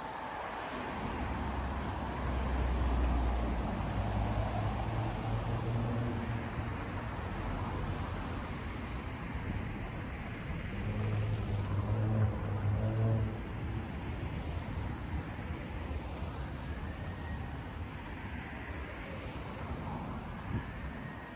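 City street traffic with motor vehicles driving past. A low engine rumble swells about three seconds in and again around twelve seconds in.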